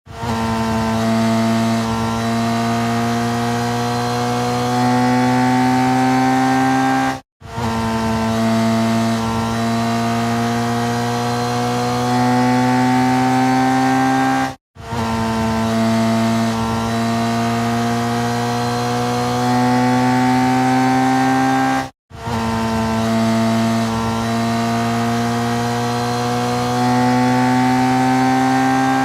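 Racing motorcycle engine held at high revs, its pitch creeping slowly upward. The same stretch of about seven seconds repeats four times, with a brief silent break between repeats.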